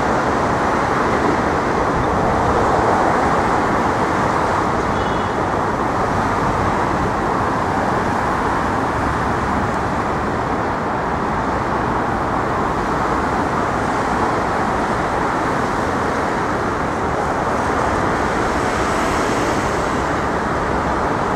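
Steady city street traffic noise, a continuous wash of passing vehicles.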